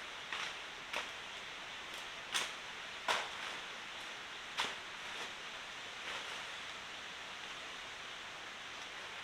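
Steady hiss of water, with about six sharp taps or knocks in the first five seconds, the loudest a little over two and three seconds in.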